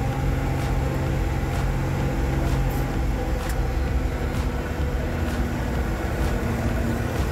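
Leyland 245 tractor's diesel engine running steadily at road pace, heard from inside the cab, with a light click roughly once a second.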